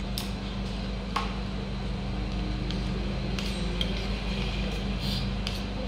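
Spoons clinking now and then against steel plates and bowls during a meal, a few light scattered clicks over a steady low hum.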